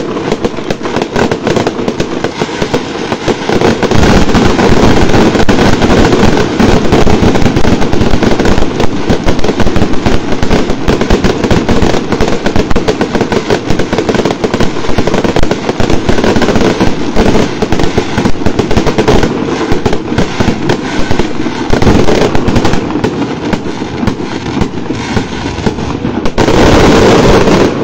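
Fireworks display: a loud, rapid, unbroken barrage of bangs and crackles, louder from about four seconds in and loudest in a short swell near the end.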